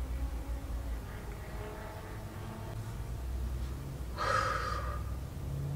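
A woman's heavy sigh about four seconds in, over a low steady rumble inside a car cabin.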